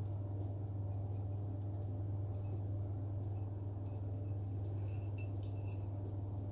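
Steady low hum in a kitchen, with scattered faint clicks and clinks of kitchen utensils or dishes while white sauce is spread over a lasagna.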